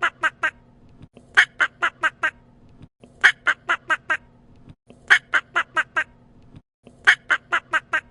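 A duck quacking in runs of five or six quick quacks, each run growing fainter, repeated four times about every two seconds.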